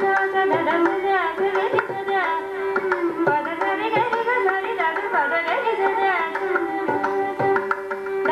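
Carnatic concert music: a woman singing with violin and mridangam accompaniment, over a steady drone. The voice and violin glide through ornamented phrases, and the mridangam strikes a regular pattern of crisp strokes.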